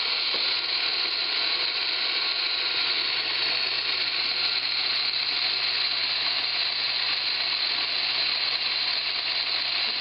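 Rancilio Rocky burr grinder grinding coffee beans straight into a portafilter. The motor runs steadily, a dense grinding hiss over a low hum.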